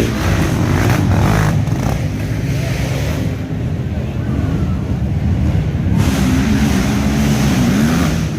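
Off-road racing ATV engines running hard and revving, their pitch rising and falling with the throttle.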